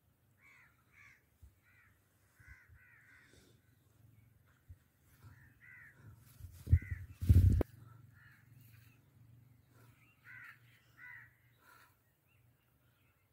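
Birds calling in short repeated calls, in little clusters. A brief loud low thump comes about seven seconds in.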